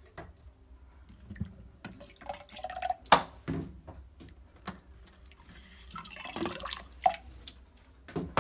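Water dripping and splashing as wet filter cartridges are pulled out of a reverse-osmosis water purifier's filter housings, with scattered plastic knocks from the cartridges and housings, the loudest about three seconds in.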